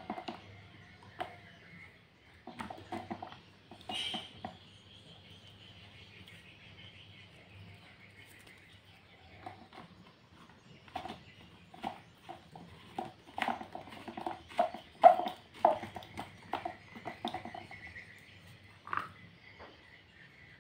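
Hard plastic parts of a 10-inch Sanex desk fan clicking and knocking as it is assembled by hand, the rear guard being fitted onto the motor housing and fastened. A few scattered clicks at first, then a busy run of quick clicks and rattles, the loudest a little past the middle.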